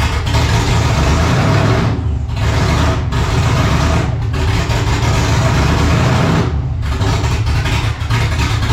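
Supercharged LS V8 in a G-body Cutlass running loudly and unevenly, stumbling in several brief dips: the engine is short of idle air, with the throttle body not yet set up.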